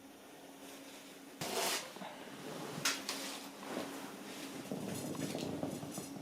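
Indoor handling sounds: a short scraping rustle about a second and a half in, a sharp click near three seconds, then softer rustling and shuffling, over a faint steady hum.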